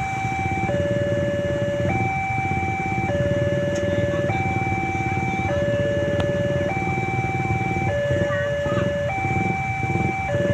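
Railway level-crossing warning siren sounding a two-tone hi-lo wail, switching between a higher and a lower tone every little over a second; this is the crossing's new siren. A steady low rumble runs underneath.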